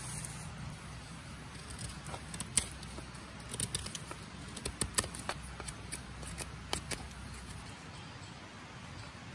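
A knife whittling a wooden stick: short, sharp clicks and scrapes at irregular spacing, stopping near the end.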